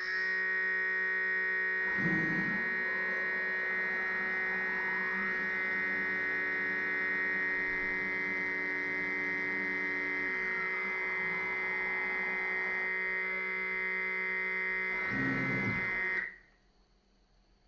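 Planetary-geared stepper motors of a 3D-printed robot arm giving a steady high-pitched electrical whine, with faint pitch glides as joints move and a short clunk about two seconds in and again near the end; the whine cuts off suddenly about sixteen seconds in.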